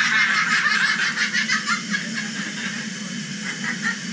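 Several people laughing together inside a steel hyperbaric chamber pressed to a 50 m dive depth on air, giddy with nitrogen narcosis.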